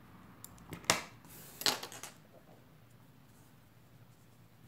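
Small scissors being handled just after snipping the yarn: a few sharp clicks in the first two seconds, the loudest about a second in.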